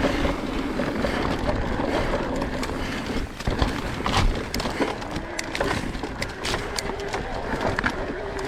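Electric mountain bike climbing a rough trail: a faint steady whine from the pedal-assist motor under scattered sharp knocks and rattles of tyres, pedals and frame over rocks and roots, with wind rushing on the microphone.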